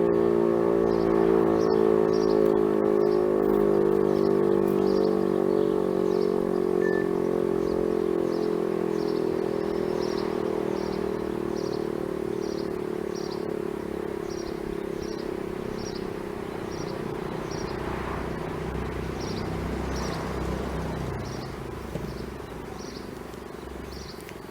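DS 977 electric motor siren winding down after its test signal: its multi-toned wail slides slowly lower in pitch and fades away. A small bird chirps over and over throughout, and a vehicle passes near the end.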